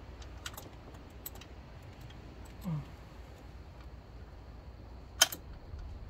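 Scattered metallic clicks and clinks of a socket wrench being worked onto a small bolt, the loudest a single sharp click about five seconds in.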